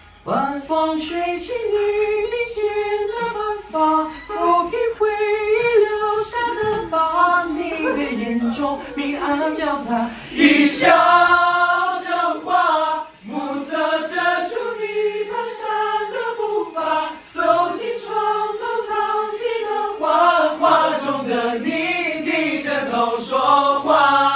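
A group of young men singing a Mandarin pop song together in unison, their voices blending as a casual group sing-along.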